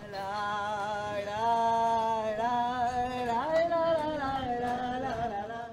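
A slow melody of long held notes, heard as singing, stepping up in pitch twice and stopping abruptly at the end.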